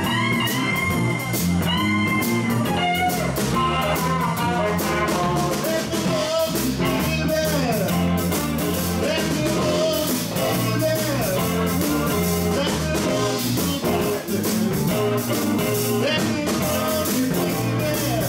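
Live blues band playing: electric guitars, bass and drum kit, with a lead guitar bending notes in the first few seconds.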